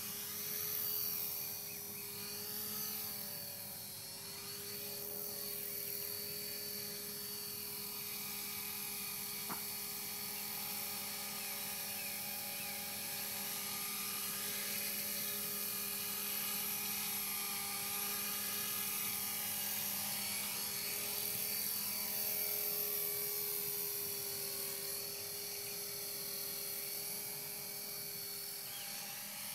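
E-sky CPX electric radio-controlled helicopter flying: a steady high-pitched whine from its motor and rotor head, wavering slightly in pitch. There is one short tick partway through.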